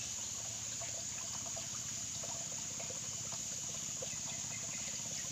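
Trickling, flowing water with small scattered splashes, under a constant high-pitched insect drone.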